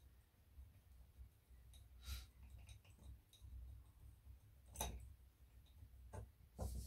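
Small bolts and alloy chassis parts of an RC crawler being fitted by hand: a few faint clicks and taps, the sharpest about five seconds in, over a faint low hum.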